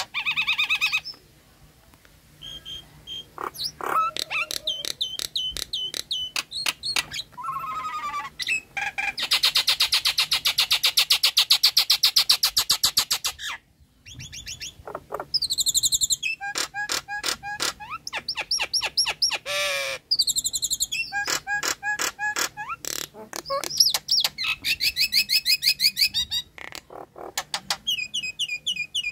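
Nias hill myna calling loudly in a lure recording: a varied string of clear whistles, rapid clicking trills and chatter, with a long dense rattle in the middle and series of repeated notes. Such recordings are played to prompt a caged myna that has gone quiet to call.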